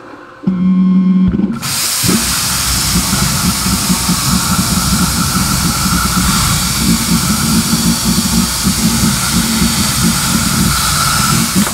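Plasma cutting torch on a CNC plasma table cutting steel sheet: after a short low hum about half a second in, the arc fires at about a second and a half and gives a loud, steady hiss with a faint crackle as it cuts.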